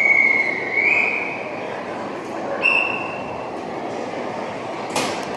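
A train running through station trackwork, its wheels squealing on the curves. There is a high squeal for about a second and a half at the start, stepping up in pitch, and a shorter one near the middle. A sharp clank comes near the end.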